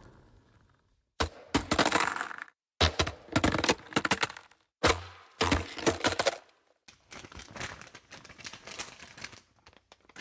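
Something smashing and breaking: a run of sudden loud crashes, each trailing off in rattling debris, then quieter crackling toward the end.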